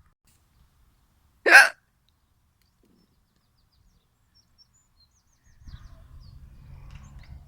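A single loud, sharp hiccup about a second and a half in, with a faint low rumble starting near the end.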